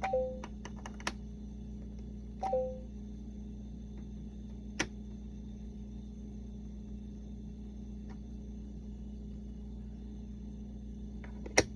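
Plastic letter pieces of a LeapFrog Fridge Words toy clicking as they are pulled out of and pushed into its slots, with a short electronic beep from the toy near the start and again about two and a half seconds in. The loudest click comes near the end.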